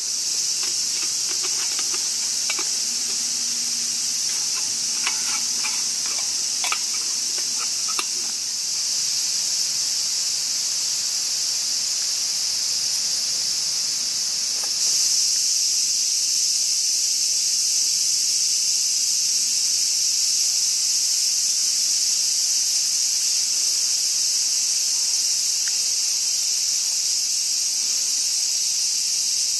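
A steady, loud, high-pitched shrill of insects, stepping up louder about halfway through. A few light clicks sound in the first eight seconds.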